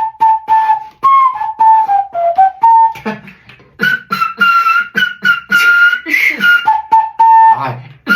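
Beatboxer doing flute beatboxing: a whistle-like flute tone carrying a melody that glides down, jumps higher midway and comes back down, over a steady rhythm of mouth-made kick and snare clicks.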